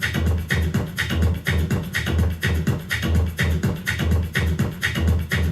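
Electronic dance music with a heavy, steady bass beat and crisp hi-hats, played loud through a homemade crate-radio speaker box with an MTX subwoofer.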